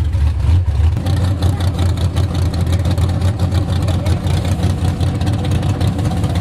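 Car engine running loud: a steady low drone that turns rougher and choppier about a second in.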